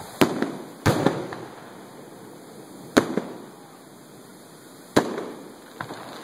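Aerial firework shells bursting: four loud bangs, the first two close together and the others about two seconds apart, each trailing off in echo, with a fainter bang near the end.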